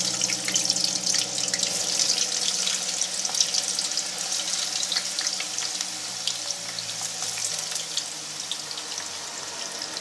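Hot cooking oil sizzling and crackling hard as raw fresh-cut potato sticks are dropped into the pan a handful at a time. The sizzle starts suddenly and eases a little toward the end.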